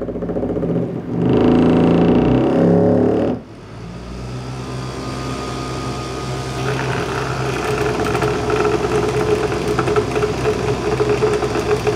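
Homemade vibrating table for powder coating jig heads: a computer fan motor with its blades broken off and a big screw as an off-centre weight, on springs. It buzzes as its speed controller knob is turned, loud and rattling for about two seconds near the start, then drops suddenly. It then builds back to a steady buzz that turns more rattly in the second half.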